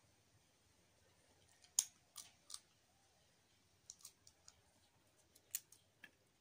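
Peanut shells being cracked open by hand: a scattered series of short, sharp snaps and clicks, the loudest about two seconds in, with more around four and five and a half seconds.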